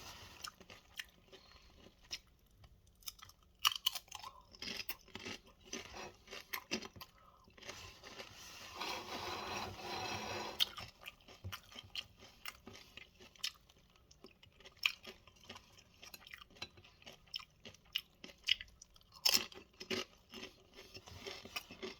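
A person crunching and chewing tortilla-chip nachos topped with melted cheddar and salsa: irregular crisp crunches, with a steadier noise lasting about two seconds around the middle.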